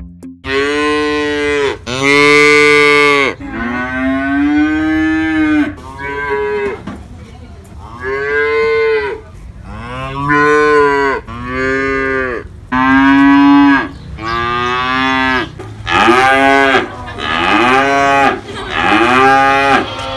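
Young calves mooing again and again, about a dozen calls, each rising and then falling in pitch.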